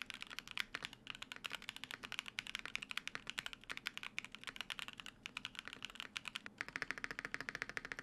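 Fast typing on a Loki65 mechanical keyboard fitted with unlubed MMStudio Mera-Mera no Mi linear switches: a quick, steady run of keystroke clacks, a little louder in the last second or so.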